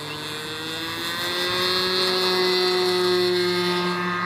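OS 65LA two-stroke glow engine of a model airplane at full throttle on its takeoff roll, its pitch rising over the first second or so and then holding, growing louder until near the end.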